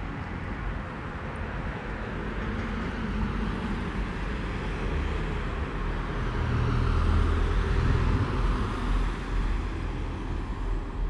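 Street traffic noise: a steady hum of road sound, with a passing car that grows loudest about seven to eight seconds in.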